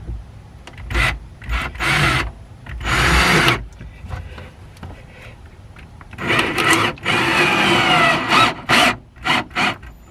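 Drill/driver running a screw with a fender washer into the plastic lip of an RV cargo bucket. It comes in several short bursts, then a longer run of a few seconds whose pitch sags as the screw seats.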